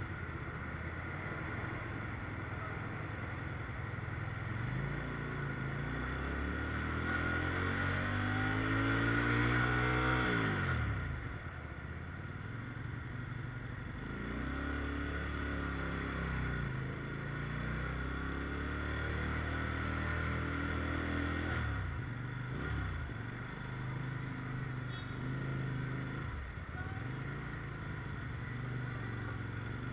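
Sport motorcycle engine running in slow traffic, its pitch climbing under throttle and falling off again several times as the rider eases on and off and changes gear, with the longest climb dropping away sharply about eleven seconds in.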